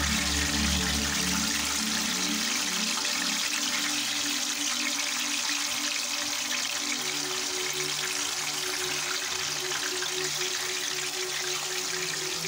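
Ripe plantain slices frying in hot palm oil in a pan, a steady sizzling hiss, with background music of low stepped notes.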